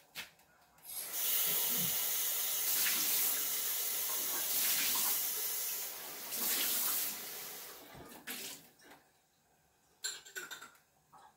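Kitchen tap running into a sink as an empty sauce jar is rinsed out under it. The water starts about a second in, swells and dips, and shuts off around eight seconds, followed by a few light knocks near the end.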